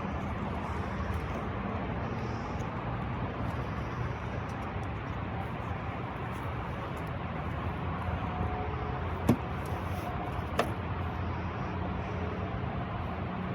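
Steady low vehicle rumble with a hum, and two sharp clicks a little over a second apart about three quarters of the way through.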